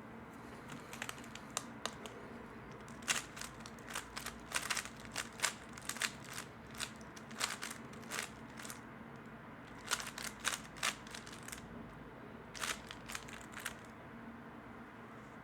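3x3 speedcube being turned fast, its plastic layers clicking and clacking in quick irregular flurries with short pauses between them.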